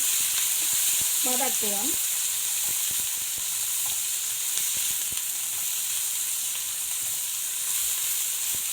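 Sliced onions sizzling in hot oil with spices in a pan as they are sautéed. It is a steady frying hiss with occasional light clicks as they are stirred.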